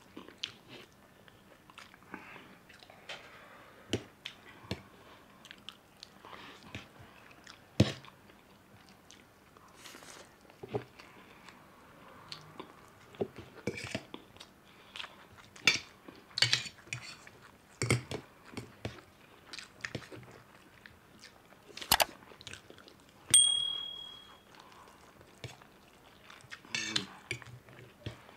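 Close-up eating sounds of two people eating chow mein: noodles slurped and chewed, with the small clicks and scrapes of steel forks on steel plates. About two-thirds of the way in, a fork strikes a plate with a single clear ringing clink.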